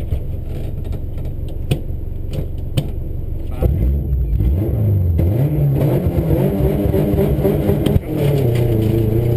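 Subaru rally car's flat-four engine idling at a stage start, then revved and held at higher revs from about three and a half seconds in during the countdown. About eight seconds in it launches, with the revs dipping and then climbing as the car pulls away. A few sharp clicks sound over the idle.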